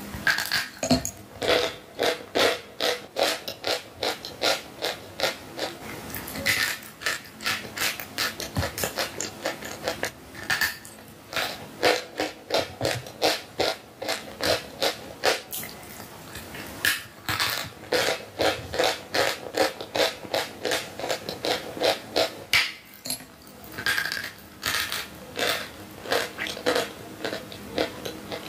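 Close-up crunching of sawn chalk being bitten and chewed: rapid crisp crunches, several a second, with a couple of short pauses.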